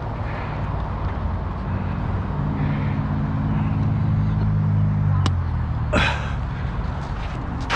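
A motor vehicle's engine droning over steady outdoor background noise, swelling for a few seconds and then fading out. A sharp click comes about five seconds in and a louder knock about a second later.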